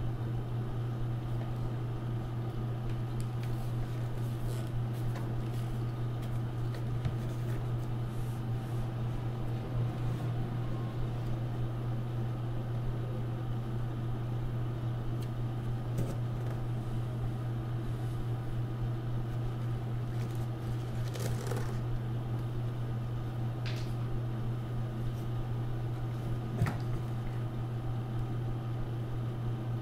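A steady low hum with scattered faint clicks and rustles of handling.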